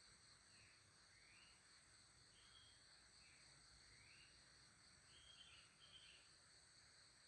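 Very faint outdoor ambience: a steady high insect drone, with short bird chirps repeating every second or so.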